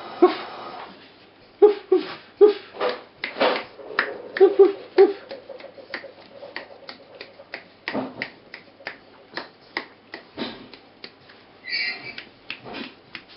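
Four-week-old Border terrier puppies giving short yips and whimpers while they play, with many sharp little clicks and taps among the calls. The calls are thickest in the first few seconds.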